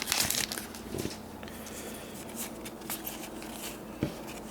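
Trading cards being handled and slid past one another: faint rustling and light ticks, with a soft knock about a second in and another near the end.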